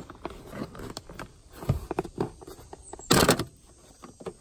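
Hands working a car seat rail and its plastic bolt cover, making scattered knocks and clicks, with one loud rattling clatter about three seconds in.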